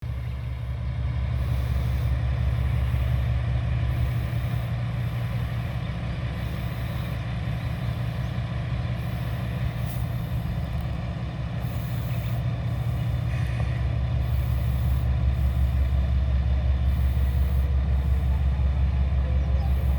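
A diesel railcar's engine idling while standing at a station, a steady low throb that grows a little louder in the second half.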